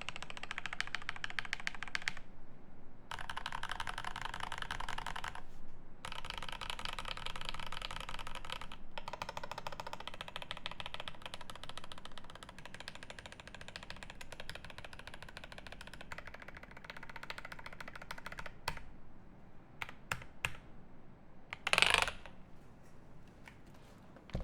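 Fast typing on a Grid 650 mechanical keyboard with lubed Alpaca V2 linear switches, an aluminium plate and GMK Hero keycaps: a dense run of key strokes with two short pauses. Near the end the typing thins to a few single key presses, and one brief, louder noise stands out.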